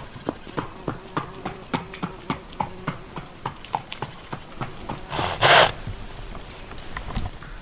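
A wild Przewalski's horse gives one loud snort about five seconds in. Behind it runs a steady patter of light clicks, about three a second.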